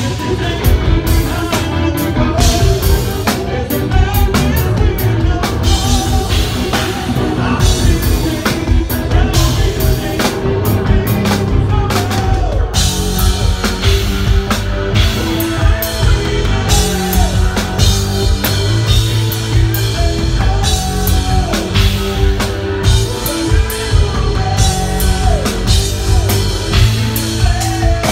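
Progressive metal band playing live through a venue PA: pounding drum kit, heavy guitars, bass and keyboards, with a male singer's voice on top.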